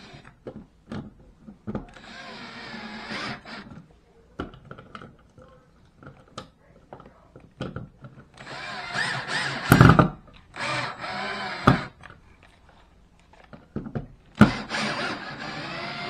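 Cordless drill-driver turning the screws of a light switch in its wall box, running in four short bursts of one to two seconds each. Clicks and knocks of handling come between the bursts, and a heavy knock about ten seconds in is the loudest sound.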